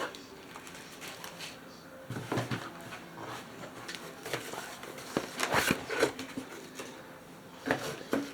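Diamond painting kit packaging being handled: irregular rustles and light knocks, with a cluster about two seconds in, another around the middle and another near the end.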